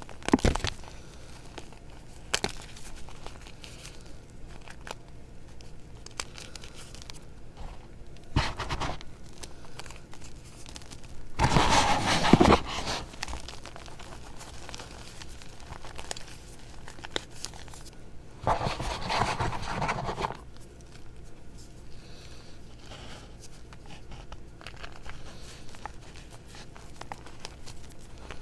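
Hands crushing crumbly reformed gym chalk and powder: dry crunching and crumbling in several bursts, with small crackles between them. The longest and loudest burst comes a little before the middle, and another follows about two-thirds of the way through.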